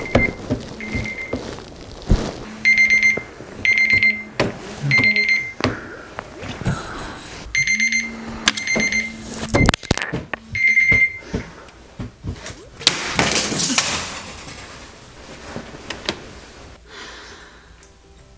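Smartphone alarm beeping in repeated short groups of high beeps, broken by thumps and rustling as a hand reaches for the phone to silence it. The beeping stops a little past the middle, followed by a stretch of rustling and then quieter sound.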